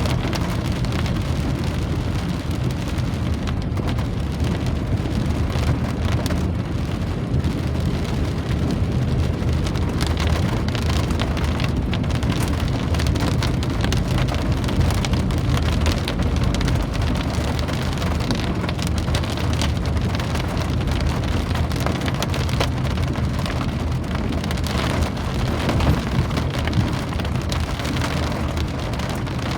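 Steady rain falling, a dense continuous patter of drops, over a constant low rumble.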